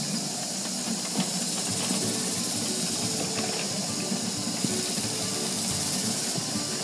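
Burr King belt grinder running, its abrasive belt hissing steadily as a knife edge is ground against it; the hiss swells and eases a few times as the blade is pressed on and lifted off.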